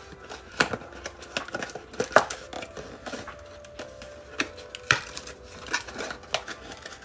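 A trading-card hanger box being opened and its cards handled: scattered crinkles, snaps and clicks of wrapper, cardboard and card stock, about a dozen sharp ones spread irregularly.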